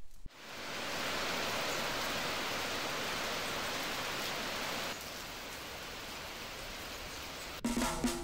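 Steady heavy rain falling, a little quieter after about five seconds. Music starts near the end.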